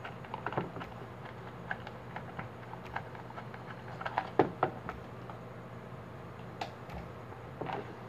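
Scattered light clicks and taps of small parts being handled as a fan's speed-control dimmer and its retaining nut are taken off, over a faint steady low hum.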